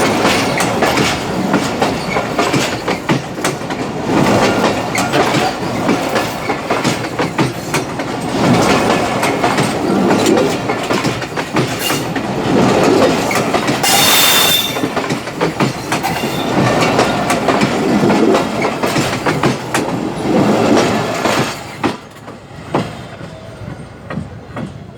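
Train wheels rolling over the rails right at the microphone: a loud rattling rumble with wheel clicks that swells and fades every few seconds, and a short high-pitched wheel screech about halfway through. The sound drops off sharply near the end.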